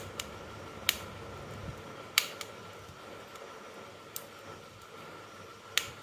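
A handful of sharp, separate clicks, five in all, spaced one to two seconds apart, over a faint steady hum.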